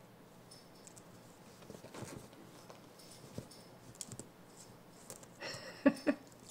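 Baby cinnamon capuchin monkey's hands patting and tapping at a mirror: light scattered clicks, then two sharp knocks close together about a second before the end.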